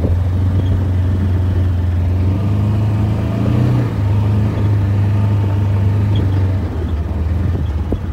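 Vehicle engine running steadily at low speed, heard from inside the cab, with a brief rise in pitch about three and a half seconds in.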